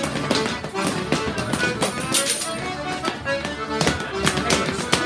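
Accordion playing a dance tune for rapper sword dancing, with many sharp taps and clicks over it.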